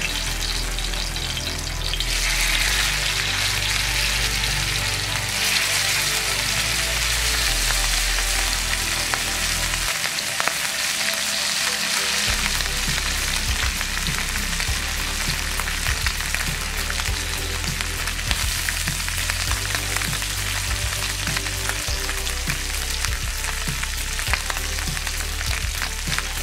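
Small gar fish shallow-frying in hot oil in a pan, a steady sizzle dotted with constant fine crackles and spits.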